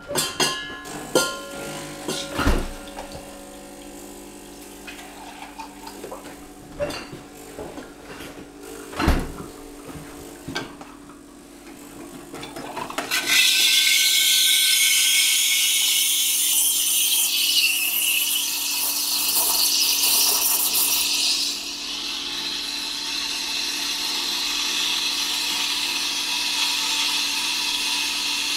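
Francis Francis X2 espresso machine humming steadily, with a few sharp knocks of glass and metal. About halfway through, its steam wand starts hissing loudly into a stainless milk pitcher, frothing milk. About eight seconds later the hiss turns a little lower and softer.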